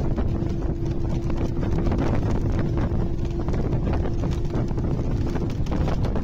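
Wind buffeting the microphone over the low rumble of a moving vehicle. A steady hum runs underneath and stops about five and a half seconds in.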